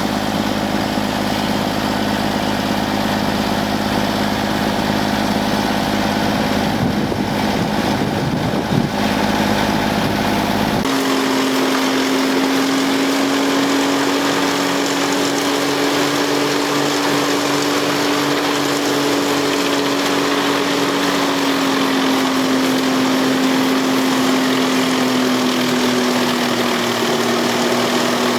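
Wood chipper engines running steadily under power. A brief rough patch ends in a sharp knock near nine seconds, and about eleven seconds in the sound switches abruptly to a different machine's steady drone.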